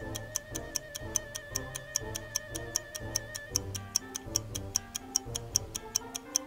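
Countdown timer sound effect: quick, even ticking several times a second over light background music with bass notes, with a long held note through the first half.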